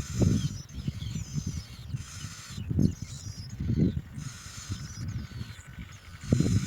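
Irregular low rustling surges, with faint high bird chirps behind them.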